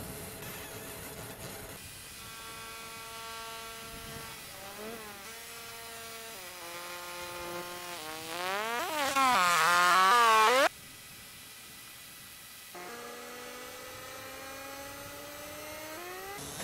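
A tool's pitched electric whine that shifts in pitch in steps and glides. It rises and grows much louder for a couple of seconds before cutting off suddenly, then a lower whine starts and slowly climbs.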